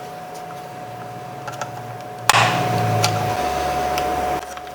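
Light plastic clicks and ticks as a switch is worked out of a car's interior door handle with a screwdriver. About two seconds in a louder steady hum starts suddenly and stops shortly before the end.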